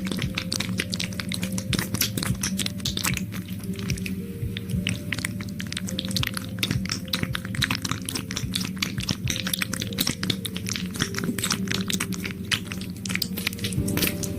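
Dense, irregular wet and sticky crackling and clicking close to the microphone, the kind made by working a gel, over soft background music with long held notes.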